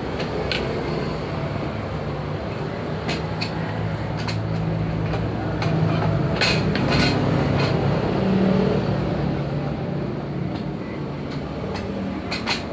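An engine running steadily, with several sharp metallic clinks scattered through it.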